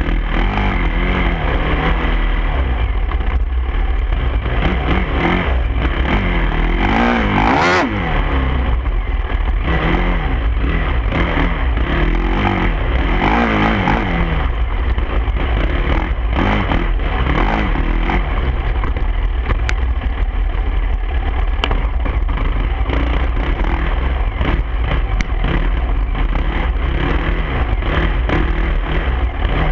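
Dirt bike engine revving up and down as the throttle opens and closes, over a heavy low rumble of wind on the microphone. A short, sharp noise comes about a quarter of the way in.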